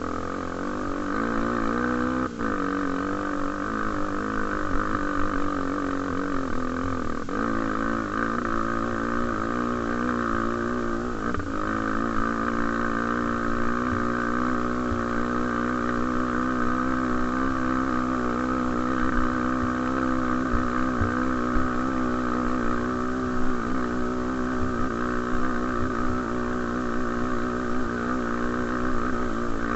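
Honda XR250 Tornado's single-cylinder four-stroke engine running at a steady, slightly wavering pitch, as when riding along at an even speed.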